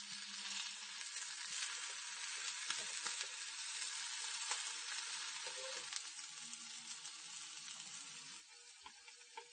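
Shishamo coated in potato starch sizzling as they shallow-fry in a little oil in a frying pan, browned on both sides and nearly done. The sizzle is steady with small crackles and dies down near the end.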